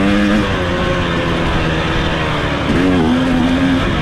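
Off-road racing machine's engine running under throttle over rough noise. Its pitch holds early on, breaks up, then climbs again and holds about three seconds in.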